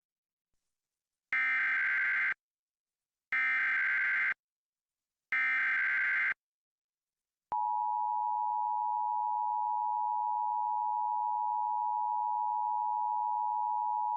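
Emergency Alert System header: three one-second bursts of screeching SAME digital data, a second apart, then the two-tone attention signal (853 and 960 Hz together) sounding steadily from about halfway through. It opens a tornado warning.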